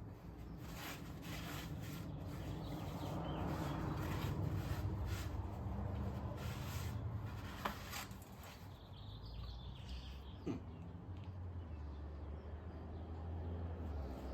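Glass cleaner squirted from a trigger spray bottle in several short bursts and a paper towel rubbing over a steel rally wheel, with two sharp knocks later on.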